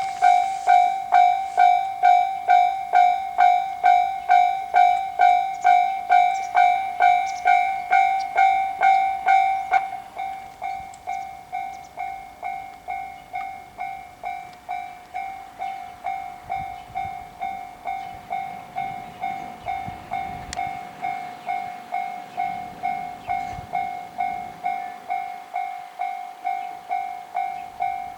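Japanese railway level-crossing warning bell ringing a single-pitched ding about twice a second, signalling an approaching train. About ten seconds in it suddenly becomes quieter and goes on ringing at the same pace.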